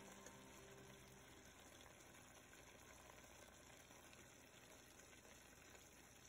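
Near silence: the last notes of the background music fade out in the first second or so, leaving only a faint, steady hiss.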